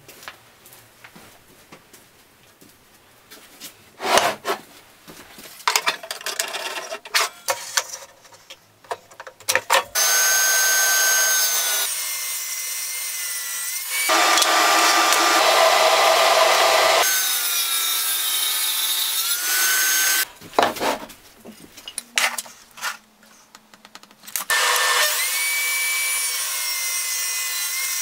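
Table saw running and ripping hardwood into strips, its high blade whine bending in pitch as the wood is fed through. It starts about a third of the way in, stops, and starts again near the end. Before that come scattered knocks of wooden blocks being handled and set down on a workbench.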